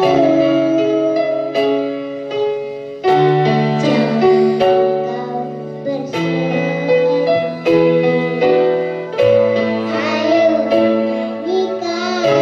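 Keyboard music with held bass and chord notes changing about once a second under a melody.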